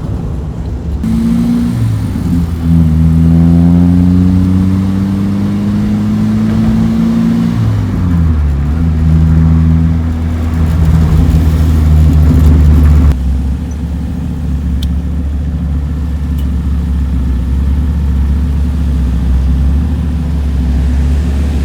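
Toyota KP30's 4K inline-four engine with a new aftermarket exhaust, running as the car drives: the revs climb in the first few seconds, hold steady, drop about eight seconds in, then settle to a steady lower note. The sound changes abruptly about thirteen seconds in.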